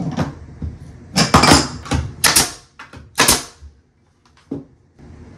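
Hand tools clattering and scraping against a copper water pipe and fitting: a few short, loud scrapes in quick succession, then one light click near the end.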